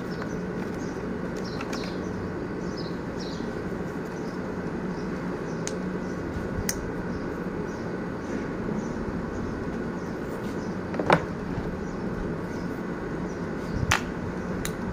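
Electric hair clipper running with a steady hum, with a sharp click about eleven seconds in and another near the end.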